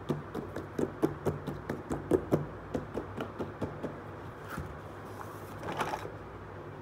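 Fingertips tapping quickly on a cardboard toy box, about five taps a second. About five seconds in, a short scraping rustle as the cardboard lid slides off.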